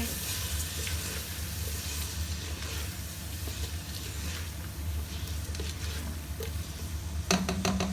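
Onions, tomatoes and spices sizzling in butter in a pan while being stirred with a spoon, over a steady low hum.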